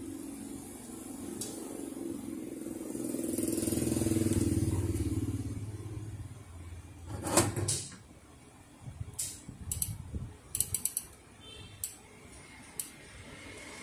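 A motor vehicle passing outside, a low rumble that swells and fades over the first six seconds. Then a run of sharp clicks and knocks as the metal frame, gear and rollers of a Ricoh photocopier's fuser oil web unit are handled and fitted together, loudest a little past the middle.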